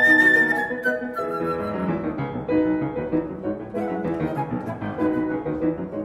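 Instrumental background music: a melody of held notes over a chordal accompaniment, in a classical style.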